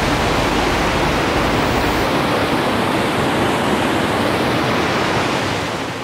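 Waterfall rushing over rock ledges into a pool, a loud, steady noise of falling water that fades near the end.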